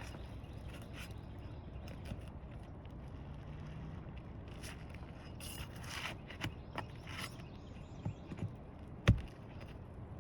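Roof repair work on asphalt shingles: scattered clicks, scrapes and knocks from hand tools and shingles, with one sharp knock about nine seconds in, over a steady low rumble.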